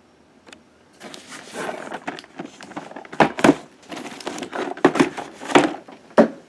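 Cardboard toy box being handled and turned over: rubbing and scraping with several sharp knocks, the loudest near the end.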